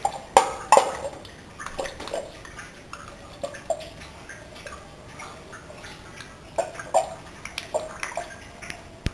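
Homemade putt-putt (pop-pop) boat engine with a flame-heated shoe-polish-can boiler running on water: irregular sharp pops and clicks, sometimes two close together, with a faint watery background. This is the sound of the engine working as intended.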